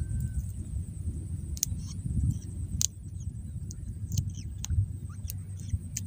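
Unhatched mandar (perlung) rail chick peeping from inside its egg, a string of short, faint rising peeps: the chick is ready to hatch and the shell has begun to crack. Under it, a low rumble of handling noise and a few sharp clicks.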